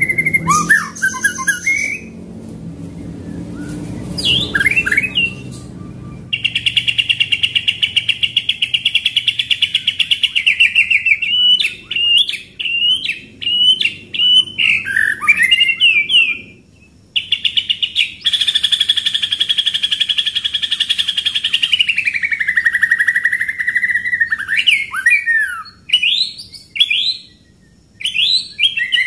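White-rumped shama singing: long, fast rolling trills held at one pitch, broken up by short sharp whistled notes. The second trill drops in pitch toward its end.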